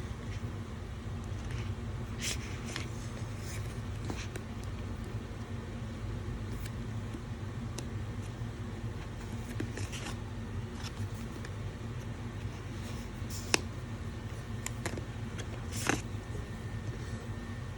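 A steady low hum with scattered light clicks and rustles of packaging being handled; one sharp click about two thirds of the way through, and a brief rustle near the end.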